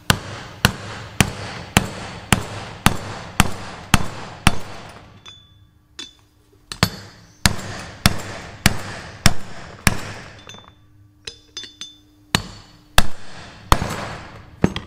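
A ball-peen hammer strikes an alloy bearing driver, driving a tapered roller bearing cup into a tractor front wheel hub. Steady blows come about two a second, then a short pause and another run of blows, then lighter taps and a few harder final blows as the cup seats all the way home.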